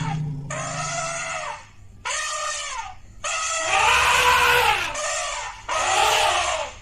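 Elephant trumpeting: four short calls in quick succession, each rising and then falling in pitch, the third the longest.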